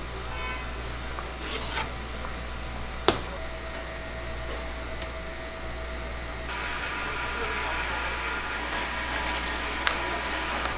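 Fish cakes frying in a deep tray of hot oil, a steady sizzle that grows louder from about six and a half seconds in, over a constant low hum. One sharp metallic clack about three seconds in, and a lighter click near the end.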